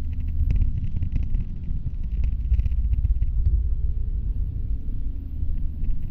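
Steady low rumble of a city bus in motion, heard from inside at the window, with faint scattered rattling clicks.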